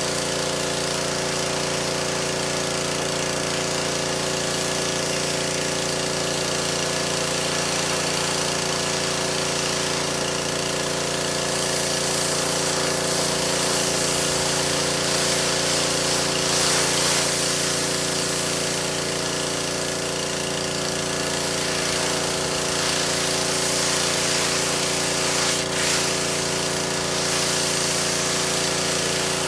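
Pressure washer running steadily: a motor and pump drone under the hiss of the water jet. The hiss grows louder for several seconds in the middle.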